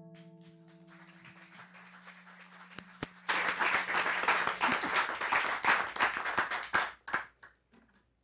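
Last strummed chord of an acoustic guitar ringing out and fading, then an audience's applause: a few claps at first, swelling to full applause about three seconds in and dying away with a few last claps near the end.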